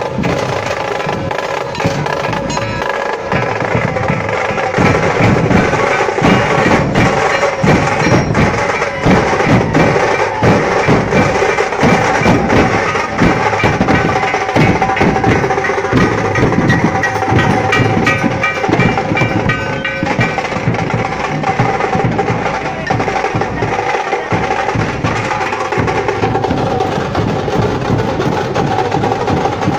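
Nashik dhol drums played loud and fast, with dense, rapid strokes in a driving processional rhythm.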